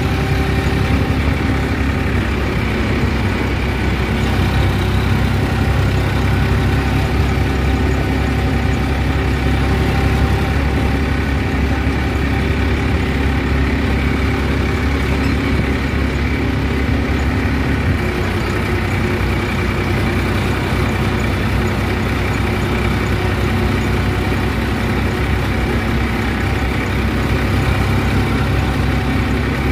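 Massey Ferguson 5245 tractor's diesel engine running steadily while driving on the road, heard loud and close from the driver's seat. The engine note drops slightly about 18 seconds in.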